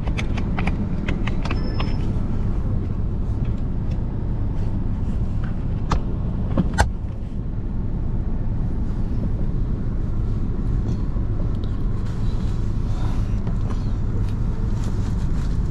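Road vehicle in motion, heard from inside: a steady engine and road rumble with light rattles, and two sharp clicks about six and seven seconds in.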